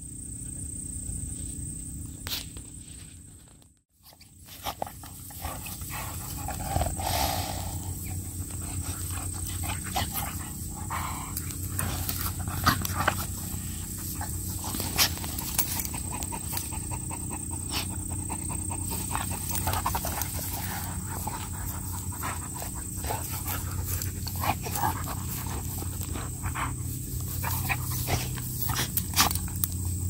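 Two dogs playing in grass, panting with mouths open, with scuffling and rustling as they move.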